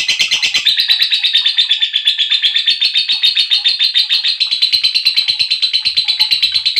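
Lovebird giving a long, unbroken chatter of rapid, sharp chirps, about ten a second, the excited long 'ngekek' call used to rouse other lovebirds.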